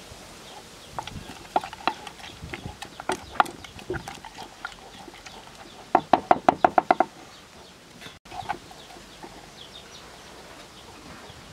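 Chickens clucking in short runs, including a fast series of about ten clucks near the middle, with a metal spoon knocking and scraping in a wooden mortar.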